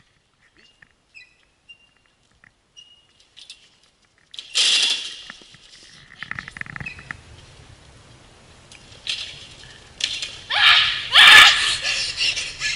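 Sounds of a gymnast working a low uneven bar over a foam pit, picked up by a camera on the bar. There are faint short squeaks at first, a loud burst of noise about four seconds in, then a run of loud squeaks and falling whooshes near the end as she swings on the bar again.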